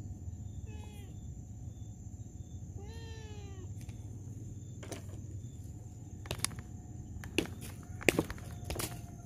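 A cat meowing twice, the second call longer and falling in pitch. It is followed by several sharp clicks or knocks in the second half, the loudest about 8 seconds in.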